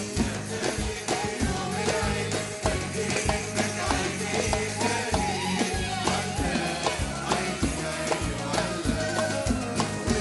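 Instrumental break of an Arabic band playing live, with hand-held frame drums with jingles (riq) keeping a steady beat under the melody instruments.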